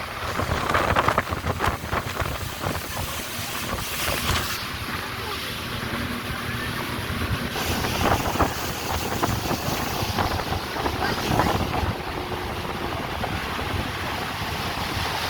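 Heavy wind buffeting the microphone aboard a speedboat at speed, with rushing water and spray underneath.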